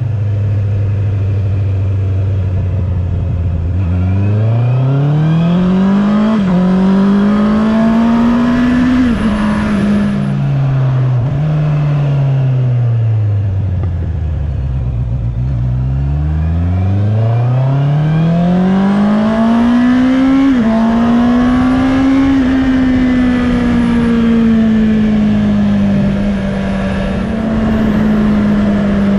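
Honda CB650R's 649 cc inline-four engine pulling through the gears: the note climbs from a low steady run through two quick upshifts, drops away as the bike slows, then climbs again through another shift and settles into a steady cruise.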